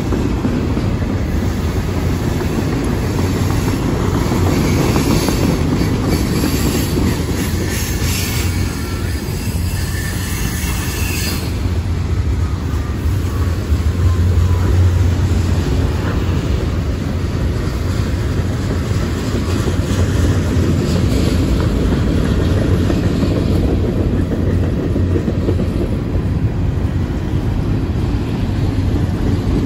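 Loaded freight cars rolling past on steel rails in a steady, heavy rumble of wheels and trucks. High-pitched wheel squeal rides over it during roughly the first eleven seconds, then fades back to the rolling rumble.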